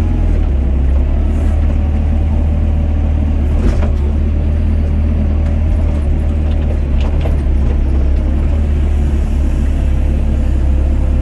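Doosan DX55 mini excavator running under digging load: a steady low diesel rumble with a steady higher whine on top. Two brief knocks stand out, about four and seven seconds in.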